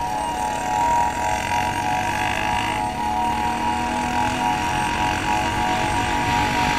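Motorcycle engine running at a steady cruising speed with wind rushing past, heard from the rider's own bike.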